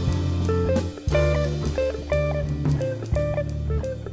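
Background music with guitar and drums.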